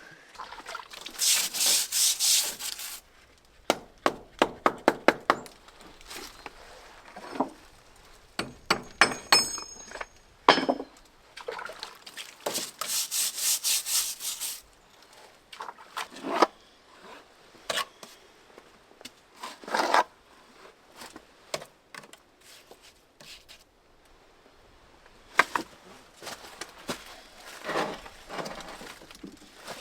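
Two spells of rapid, raspy scraping strokes, one near the start and one about halfway, with quick runs of sharp clicks and scattered wooden-sounding knocks between them.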